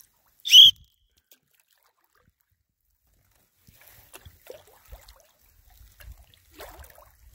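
Canoe being paddled on calm water: faint paddle dips and water dripping off the blade from about the middle on. A single short, high-pitched chirp, rising slightly in pitch, sounds about half a second in and is the loudest thing.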